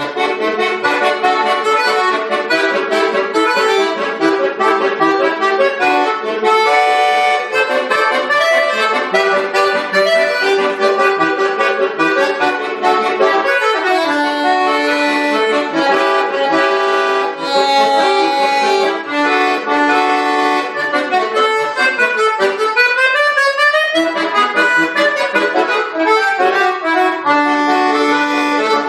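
Bayan (Russian button accordion) playing a lively piece, full chords with fast runs sweeping up and down the keyboard, notably a rising run a little past the middle.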